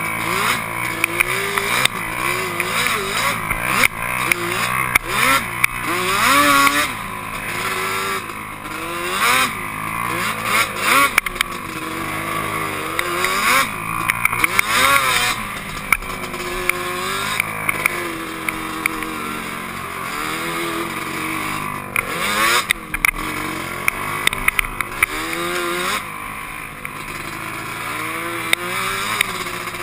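Yamaha Banshee quad's two-stroke twin engine revving up and down over and over as the throttle is opened and closed, with occasional short knocks.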